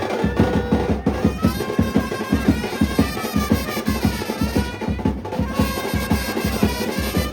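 Brass band playing a procession tune: a melody line over a fast, steady drum beat with many quick bass-drum hits.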